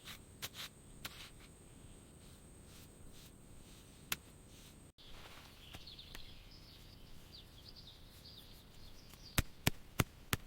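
Faint outdoor ambience with scattered sharp clicks. About halfway through there is a sudden break, then faint high chirping for about three seconds, and a few louder clicks come near the end.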